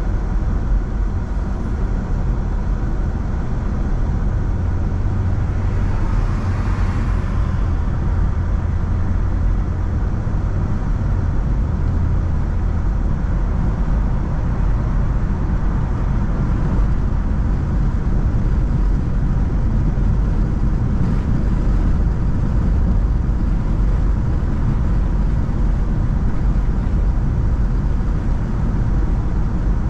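Car driving on city roads: steady low rumble of road and engine noise, with a brief swell of hiss about six seconds in.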